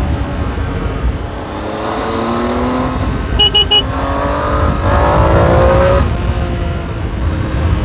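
Triumph Tiger 800 XRx's inline three-cylinder engine through its stock exhaust, pulling under acceleration while riding: the pitch rises twice and drops sharply around six seconds in, as at a gear change. Wind rumble sits underneath, and three short high beeps sound about halfway through.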